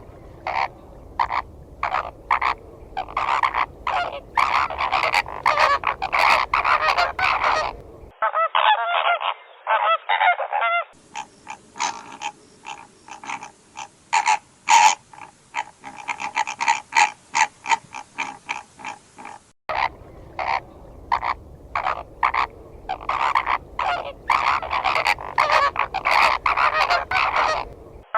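A flock of flamingos honking: many short calls in quick, overlapping succession. Several recordings are spliced together, with abrupt changes in sound quality about 8, 11 and 20 seconds in.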